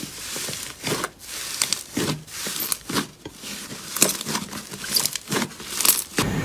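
Slime being squeezed and pressed by hand, giving irregular crisp crackles and snaps, a loud one every second or so with smaller crackles between.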